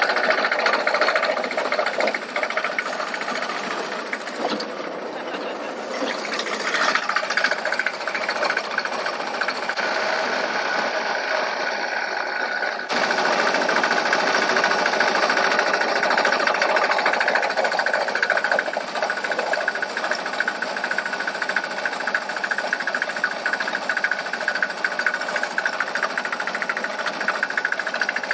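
Small engine of a motorised monorail trolley running under way, a fast, steady mechanical clatter. The sound changes suddenly about thirteen seconds in.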